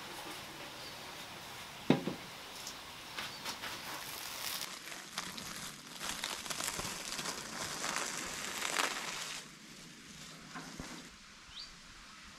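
Plastic cling film crinkling and crackling as it is peeled off a turned-out aspic, preceded by a single sharp knock about two seconds in.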